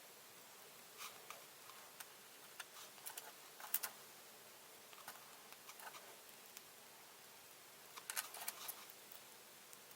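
Faint, scattered light clicks and taps of small plastic model-kit parts being handled, with small clusters of clicks about a second in, around three to four seconds in, and near the end.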